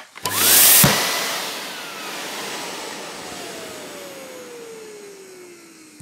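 Vacuum cleaner switched on with a click and run for about half a second: a loud rush of air while the motor whine climbs. It is then switched off, and the whine falls slowly as the motor spins down.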